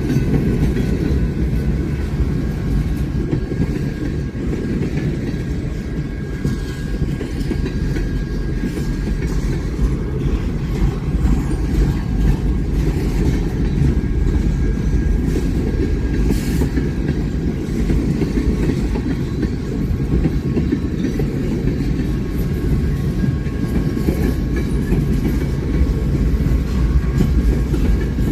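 A train rolling past close by: a steady, loud rumble of wheels on rail, with a faint high squeal in the first half.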